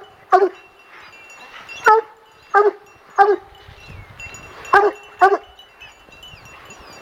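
Plott hounds barking, six short loud barks coming singly and in pairs at irregular intervals.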